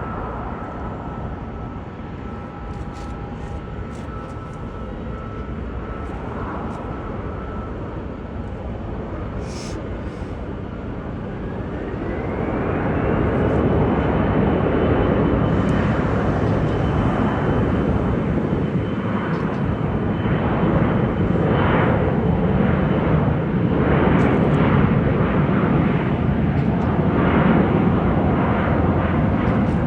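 Jet airliner engines running, with a whine that rises in pitch about eleven seconds in and then holds, as the engine noise grows louder and stays steady.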